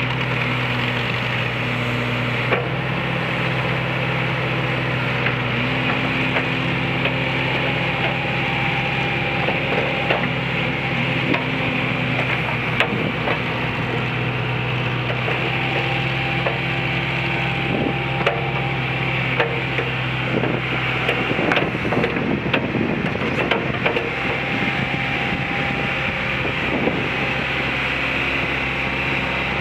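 1984 John Deere 410B backhoe's diesel engine running steadily, with scattered knocks and clanks. About two-thirds of the way through, a few seconds of rattling clatter break up the steady engine note.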